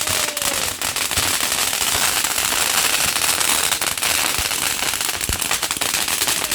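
Fireworks going off: a dense, continuous crackle of rapid pops.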